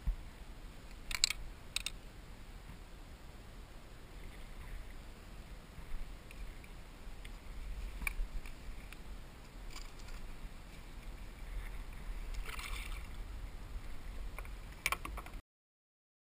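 Wind rumbling on the microphone, with scattered clicks and knocks as a salmon is handled in a landing net in a kayak. The sound cuts off abruptly near the end.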